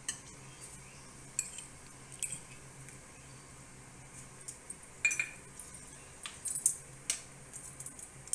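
Metal spoon and spatula clinking against a metal kadhai and spice containers: a handful of scattered clinks, the loudest about five seconds in with a short ring, over a faint steady low hum.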